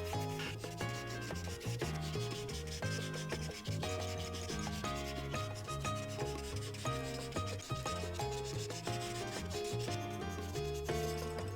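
Prismacolor marker tip rubbing and scratching over paper in quick back-and-forth strokes as an area is filled in, over background music with a bass line.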